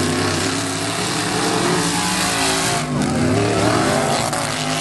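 Several rear-wheel-drive autocross cars racing on a dirt track, their engines revving hard with overlapping tones that rise and fall.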